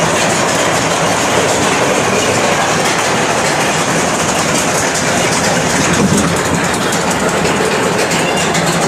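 Steady rumble and clatter of an amusement-park ride car's wheels rolling along its track, heard from on board.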